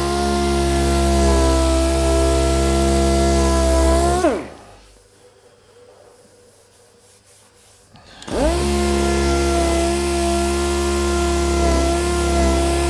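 Handheld orbital sander running steadily against a car's boot lid, abrading the paint. It spins down to a stop a little over four seconds in, pauses for about four seconds, then starts again and spins back up to speed.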